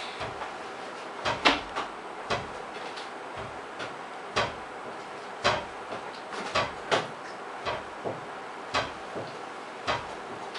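A string of short, sharp knocks and clicks at irregular intervals, roughly one or two a second, over a steady hiss; the loudest comes about one and a half seconds in.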